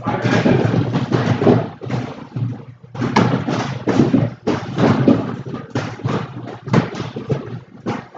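Irregular thuds and smacks of kicks landing on free-standing heavy bags, many close together and overlapping.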